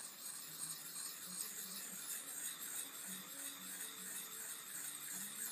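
Soft, steady scraping of a Lansky sharpening rod worked in small circles against the edge of a chisel-ground steel knife blade, honing the edge. Faint background music runs underneath.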